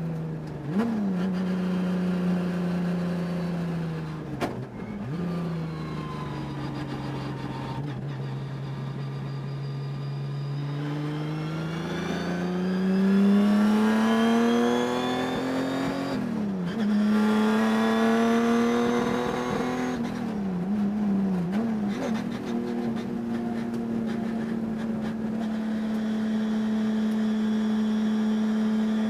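Race car engine heard onboard, its note dropping about four seconds in, staying low for several seconds, then climbing under acceleration and holding high revs with a few quick dips. The engine has a high-RPM miss that the owner could not cure by changing parts.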